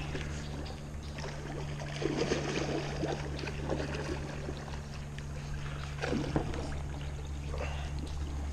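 A hooked fish thrashing and splashing at the surface close to the bank as the line is reeled in on a spinning reel, with louder bursts of splashing about two seconds in and again about six seconds in. A steady low hum runs underneath.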